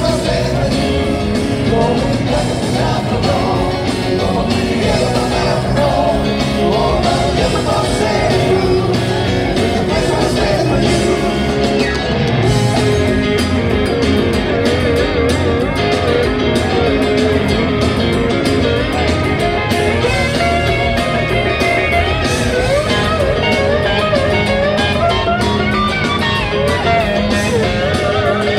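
Live rock band playing: electric guitars and drums with a singer, heard from the audience in a concert hall.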